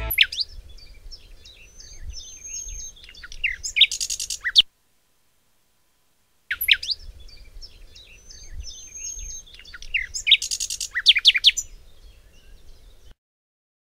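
Birdsong sound effect: a few seconds of small birds chirping and whistling, cut off into dead silence, then the same recording played again about two seconds later.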